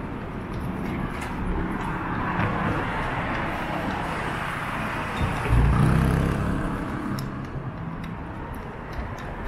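Street traffic noise with vehicles passing. About halfway through, a louder vehicle goes by with a low engine note, then fades.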